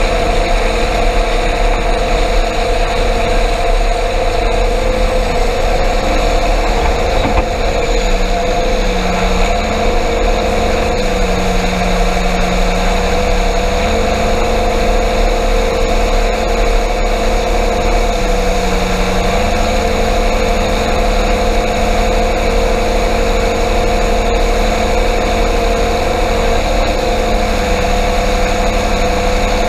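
Combine harvester running under load while harvesting corn: a steady engine and machinery drone with a constant whine that dips slightly in pitch a few times.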